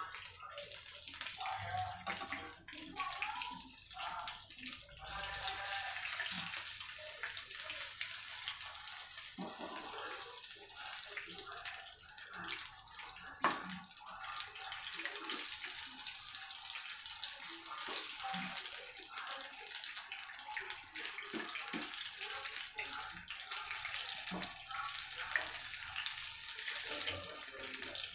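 Mushroom pakodas deep-frying in hot oil in a kadai: a steady sizzling hiss with fine crackles. There is a single sharp knock about halfway through.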